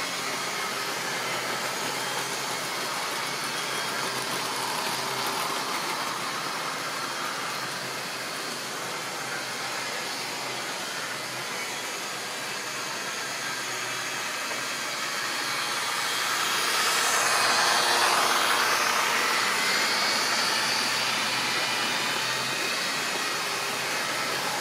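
A model railway train running on the track: the steady whirr of the locomotive's electric motor and the wagons' wheels rolling on the rails. It swells loudest about 17 seconds in as the train passes close by.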